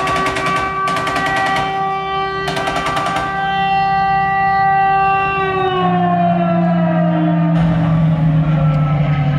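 War-themed show soundtrack: an air-raid siren holds a steady wail, slides down about six seconds in and starts to wind up again near the end, over a low steady drone. Three short bursts of machine-gun fire rattle over it in the first few seconds.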